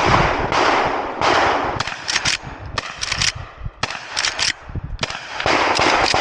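Henry Big Boy X lever-action rifle firing .38 Special rounds: a string of loud shots, several a second at the start and then in quick clusters.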